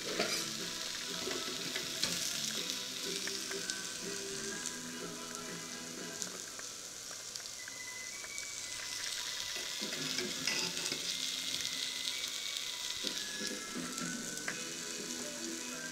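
Meat cutlets sizzling on a hot ridged grill pan: a steady frying hiss with scattered crackles.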